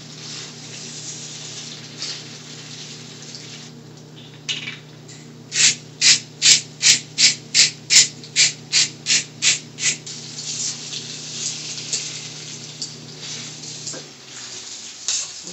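A pepper mill being twisted over a pan, about a dozen quick rasping grinds at roughly three a second in the middle. Under it, pasta sizzles steadily in oil in a stainless steel skillet, with a low hum from the portable induction cooktop that cuts off near the end.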